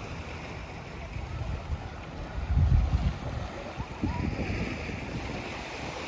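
Small waves washing on a sandy beach, with wind buffeting the microphone in low rumbling gusts, strongest about two and a half seconds in and again near four seconds.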